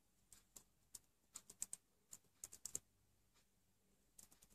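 Computer keyboard keys being typed as a password is entered: faint, irregular keystroke clicks. There are a few spaced taps, then a quick run in the middle, a pause, and a few more taps near the end.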